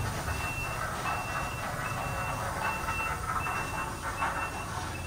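Electronic warning beeper giving a steady high beep about every three-quarters of a second, over constant workshop background noise.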